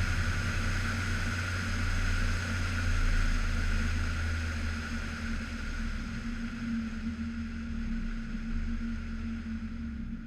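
Steady drone of a car on the move, engine and road noise, easing off a little about halfway through.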